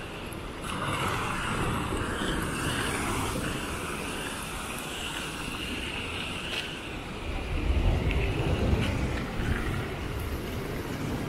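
Sea waves washing and splashing against a concrete pier, with wind on the microphone. The low rumble swells about eight seconds in.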